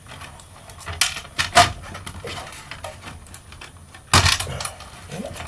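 Hand tools clinking and clicking against the metal parts of a small electric fan motor as it is taken apart, with a louder clatter about four seconds in.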